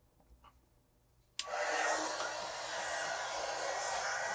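Handheld electric heat gun switched on with a click about a second and a half in, then blowing steadily with an even rush of hot air, heat-shrinking a vinyl sleeve over a crimped wire connection.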